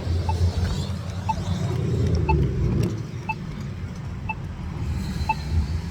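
A faint electronic beep repeating about once a second, each a short two-tone pip, over a low steady rumble of wind on the microphone.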